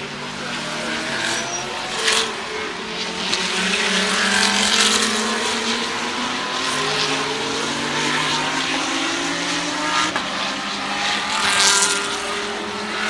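GT3 race car engines at racing speed, several cars overlapping, their pitch rising and falling through the gears. Brief sharp crackles about two seconds in and again near the end.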